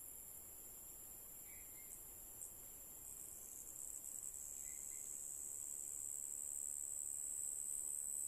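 Steady, high-pitched insect chorus in tropical forest, swelling louder from about three seconds in, with a faint short call repeating about every three seconds.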